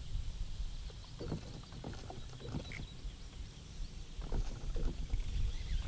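Wind rumbling on the microphone, with a few scattered soft knocks.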